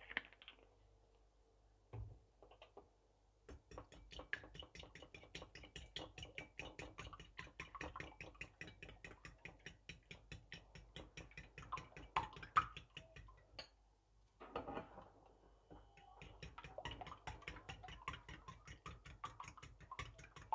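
Fork beating eggs in a bowl: a faint, quick, even clicking of the fork against the bowl, broken by a short pause about halfway through.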